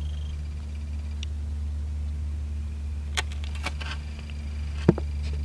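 Quiet bush ambience: a steady low hum with scattered small clicks and crackles, and one sharper knock about five seconds in.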